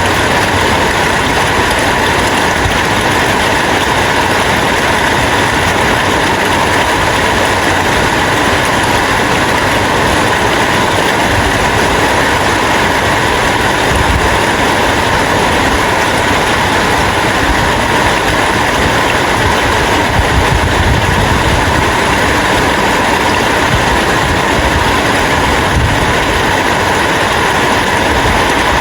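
Rain falling steadily, a dense, even hiss with no breaks.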